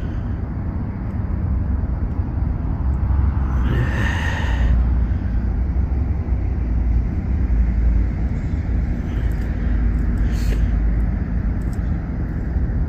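Steady low rumble of a freight train moving nearby, with a brief higher-pitched sound about four seconds in and another, shorter one near ten seconds.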